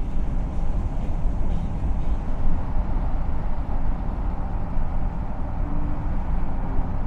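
Steady road and wind noise from a car driving along a paved road, a dense low rumble without breaks.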